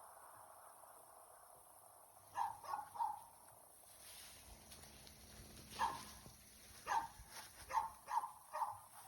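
A dog barking: a quick run of three short barks, then about six more scattered barks, over a faint steady background hiss.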